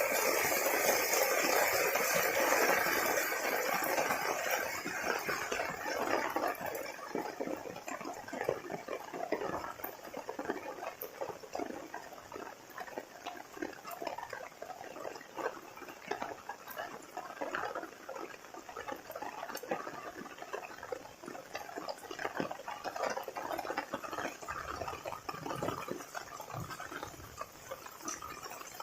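Heavy rain falling, a dense patter of drops. It is louder for the first five or six seconds, then eases a little and stays steady.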